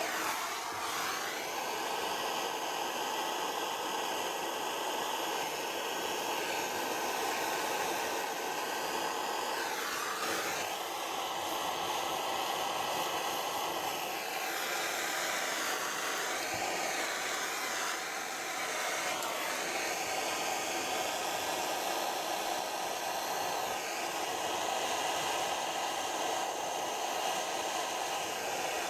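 Gas blow lamp burning with a steady hiss while it heats an exhaust pipe joint for silver soldering. Its tone wavers now and then as the flame shifts.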